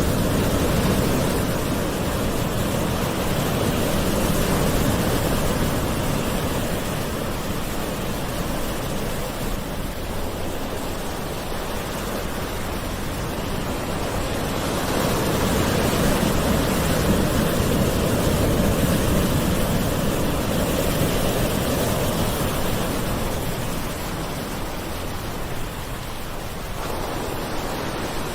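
Gentle ocean waves washing ashore, a steady rush of surf that swells and eases slowly, with two broad swells about fifteen seconds apart.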